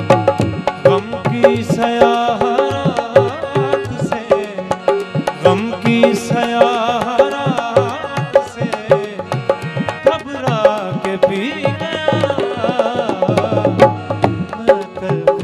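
Ghazal accompaniment: harmonium playing with quick tabla strokes, and the singer's voice joining in places.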